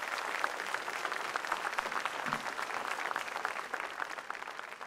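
Large audience applauding, many hands clapping at once.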